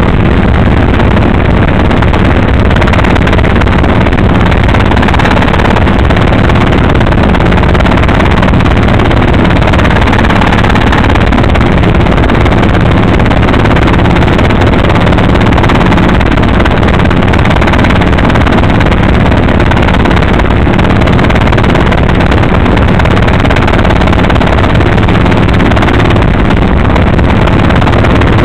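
Robinson piston helicopter in flight, heard from inside the cabin: a loud, steady drone of engine and rotors with a low hum underneath.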